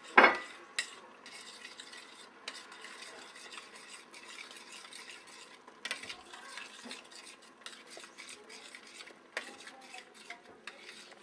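Cheddar cheese sauce being stirred in a saucepan, the utensil scraping and clinking against the pot, with one loud clank just at the start.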